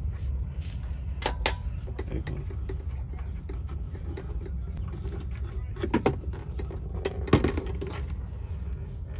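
Engine oil drain plug being worked loose under an SUV: a few sharp metallic clicks and knocks from the ratchet, the plug and the drain pan over a steady low hum.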